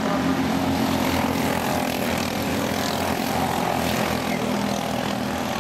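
Several quarter midget race cars' small engines running together in a steady drone as the cars lap the oval.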